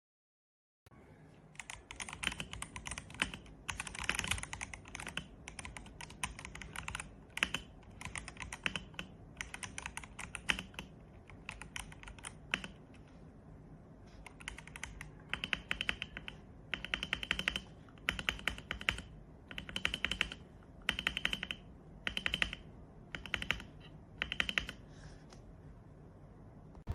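Typing on an RK M75 wireless mechanical keyboard with PBT double-shot keycaps: bursts of fast keystroke clacks with short pauses between them, starting about a second in.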